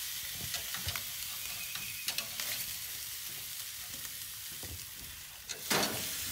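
Ribeye steaks sizzling on hot grill grates, with a few light clicks and scrapes of the metal spatula and tongs on the grates as the steaks are lifted and turned. A louder burst of sizzle comes near the end as a steak goes back down onto the grate.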